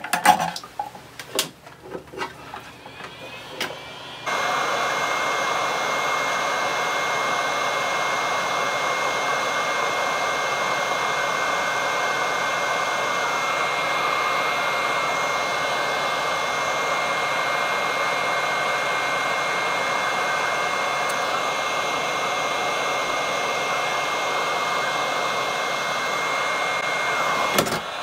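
A few handling clicks and knocks, then about four seconds in a hot-air rework gun switches on and runs steadily: a fan hiss with a thin high whine. It is heating a solder joint on a logic board to free a stuck surface-mount capacitor.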